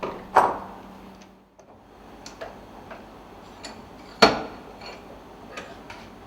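Two sharp knocks about four seconds apart, each with a short ring, and a few lighter clicks between them: metal tool parts and fittings being handled while the nitrogen pressure setting tool is put together.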